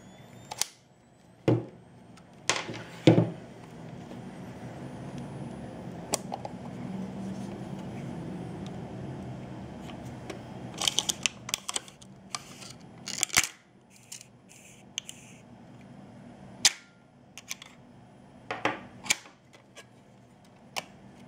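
Sharp mechanical clicks, clacks and knocks of a Meopta Optineta 35 mm camera being handled and worked, its controls clicking and its metal body knocking, in irregular groups. A low rumble rises in the middle.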